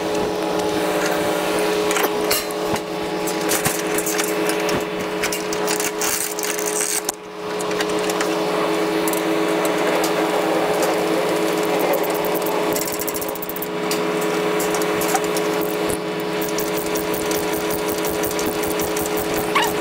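Truck engine running at a steady speed, a drone of several fixed tones, with rapid clicking and rattling over it.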